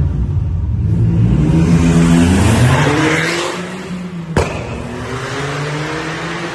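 Smart Fortwo 451's turbocharged 1.0-litre three-cylinder engine revving up, its pitch climbing for about three seconds. About four seconds in comes a single sharp exhaust bang, the overrun pop of a pops-and-bangs tune, and then the engine pulls steadily again.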